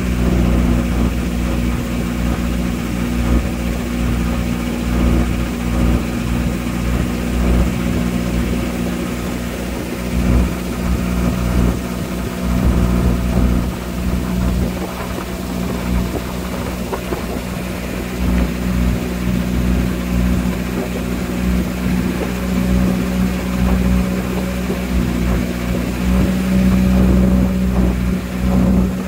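Engine of a small wooden river boat running steadily under way, a constant drone that grows a little louder near the end.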